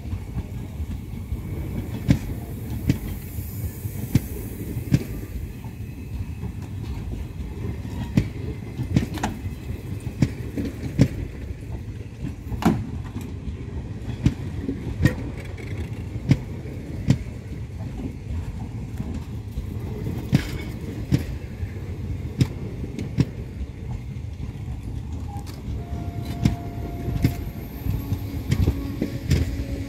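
Indian Railways express passenger coaches rolling past on the adjacent track: a steady low rumble of steel wheels on rail, with sharp clacks roughly once a second as the wheels cross rail joints.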